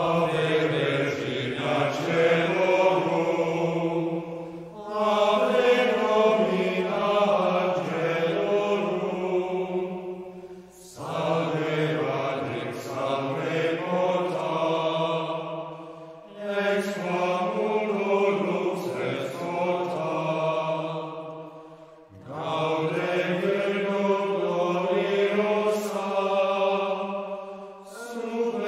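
Slow, meditative sung chant: long held phrases of about five to six seconds each, with short breaks between them.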